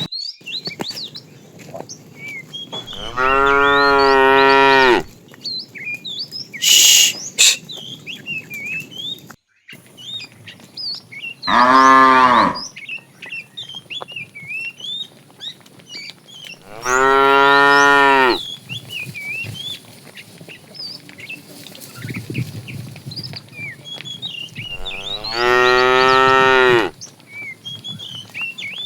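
Cattle mooing: four long moos of about two seconds each, several seconds apart, over steady chirping from small birds. A short burst of noise comes about seven seconds in.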